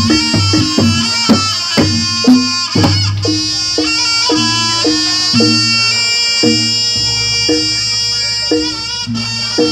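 Javanese jaranan gamelan music: a reedy shawm-like wind instrument holds a long, bright melody line over a steady run of pitched gong-chime strokes about twice a second and drum hits.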